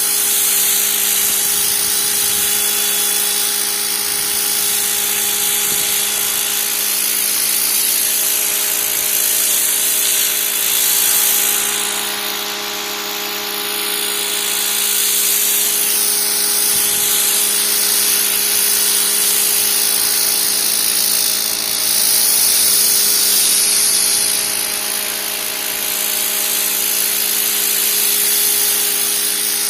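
Pressure washer running: a steady motor hum under the loud hiss of the high-pressure water jet, the hiss swelling and easing every few seconds.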